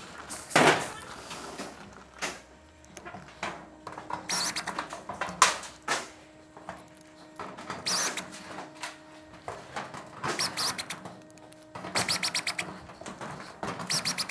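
Cordless driver running in short bursts, driving small screws through a steel barge capping flashing into the rib of a Klip Lok roof sheet, with clicks and handling knocks between screws. About twelve seconds in there is a fast run of even ticks.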